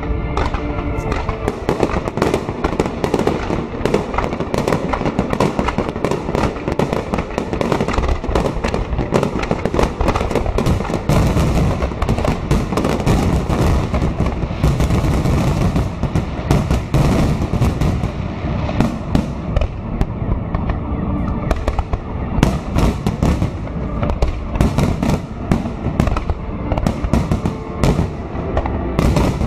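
Aerial firework shells bursting overhead in a dense barrage: a rapid, continuous run of bangs and crackles, many a second.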